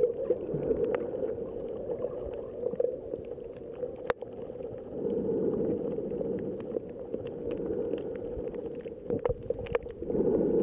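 Water noise picked up by a camera held underwater: a muffled, steady rush with scattered sharp clicks and crackles, swelling louder about halfway through.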